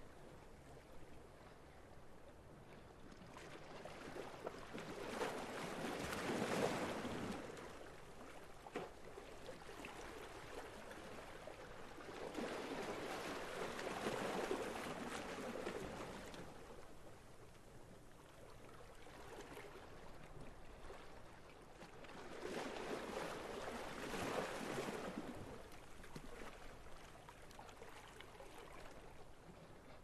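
Small sea waves washing in three times, about nine seconds apart, with a low wash of water between them.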